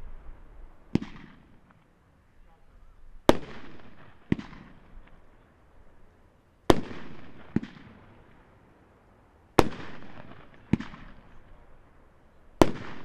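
Dominator Mammoth Ring of Fire 500-gram firework cake firing shot after shot, about every three seconds. Each shot is a loud bang followed about a second later by a fainter bang, each with a short echoing tail.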